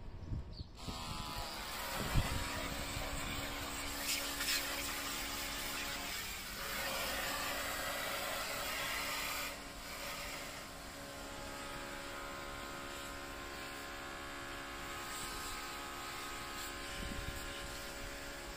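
Cordless handheld pressure washer running: a steady electric pump whine over the hiss of the water jet, switching on about a second in. There is a single thump about two seconds in.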